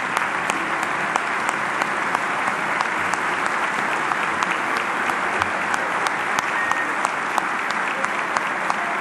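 Large audience applauding steadily, with dense clapping and sharp individual claps standing out.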